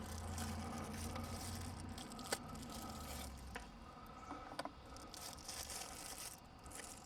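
Faint handling noise from a knife sheath and its paracord being worked by hand: soft rustling and scraping with a few light clicks.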